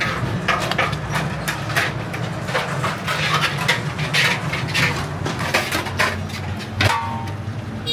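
Long metal serving spoon scraping and clinking against an aluminium pot as chicken curry is ladled out, with a louder knock about seven seconds in, over a steady low hum.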